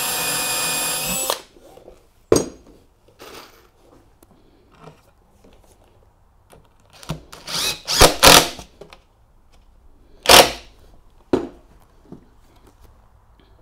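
Cordless drill running steadily into a wooden stair tread for about a second, then stopping. Scattered sharp knocks follow from tools and wood being handled, the loudest cluster about eight seconds in.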